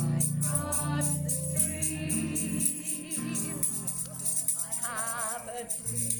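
A recorded pop song playing, with sung notes held and wavering and a choir behind. A shaker or rattle is shaken in a steady rhythm over it.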